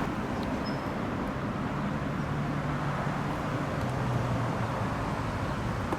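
Steady road traffic noise, with a low engine hum from a passing vehicle for a couple of seconds in the middle.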